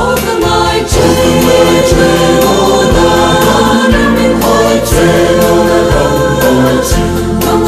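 Voices singing a Christian hymn together over backing music with a steady beat about once a second.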